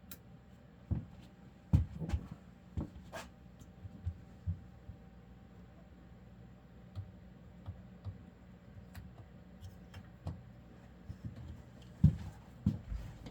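Barra 400e battery-powered BB gun firing single shots at uneven intervals: about a dozen short, sharp snaps, a few louder than the rest, over a faint steady hum.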